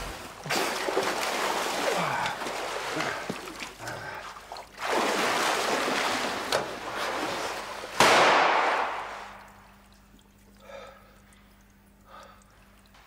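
Swimming-pool water splashing and churning as people thrash in it, with a sudden loud splash about eight seconds in that trails off. Then the water goes quiet, with a couple of short gasping breaths near the end.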